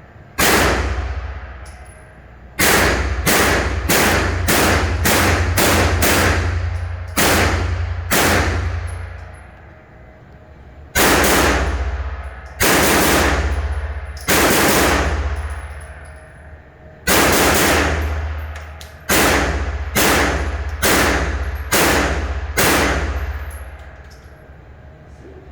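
A firearm fired about twenty times in irregular strings, shots half a second to a few seconds apart, each ringing out in a long echoing decay, with two longer pauses between strings.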